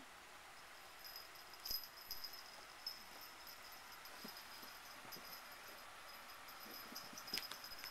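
Faint jingling of a cat's collar as the cat leaps and runs about on a couch, louder in two short bursts, about two seconds in and near the end.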